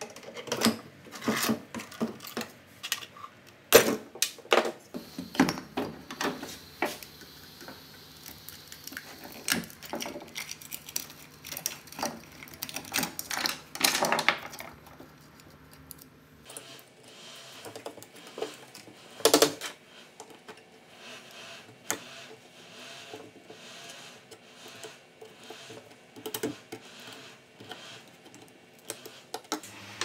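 Irregular clicks, taps and scrapes of metal parts and hand tools being handled as a small refrigerator and its compressor are taken apart by hand, with a sharp knock about four seconds in and a louder clatter about nineteen seconds in. A faint low hum runs under the first half.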